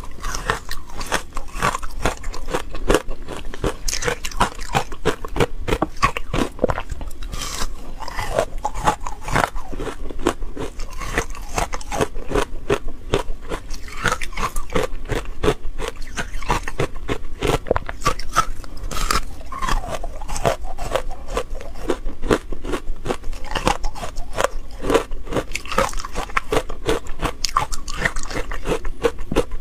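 Hard frozen matcha ice being bitten and crunched between the teeth: a dense, continuous run of sharp cracks and crunches.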